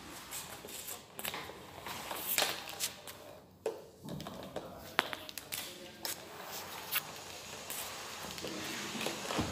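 Corded steam mop pushed back and forth over a tiled floor: the mop head scraping and knocking, with irregular clicks and footsteps in slippers. Sharp single knocks stand out about two and a half and five seconds in.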